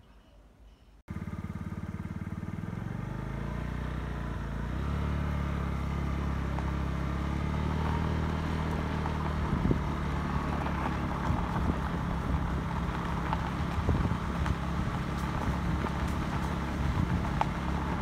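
A vehicle engine, most likely a motorbike's, comes in abruptly about a second in. Its pitch rises over the next few seconds as it picks up speed, then it runs steadily.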